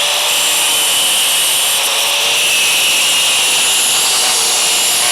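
Electric grinder running at speed with its wheel grinding a piece of high-carbon steel for a spark test: a steady motor whine that dips slightly under load, over the hiss of the metal being ground.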